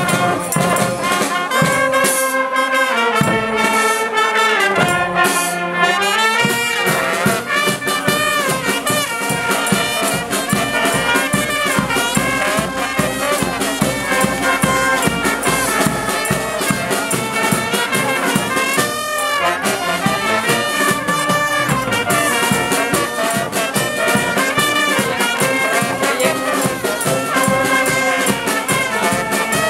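Street brass band (fanfare) playing live: trumpets, trombones, saxophones and a sousaphone. A bass drum and percussion come in with a steady beat about six seconds in.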